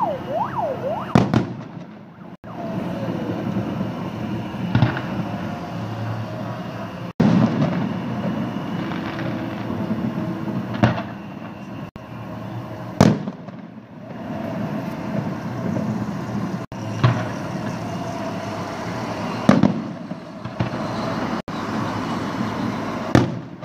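Festive fireworks salute: shell bursts banging one at a time every one to four seconds, over a steady outdoor din.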